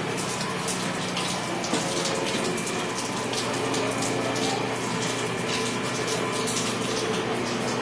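Steady rush of water running in a concrete tank and its pipework, with a steady low hum underneath.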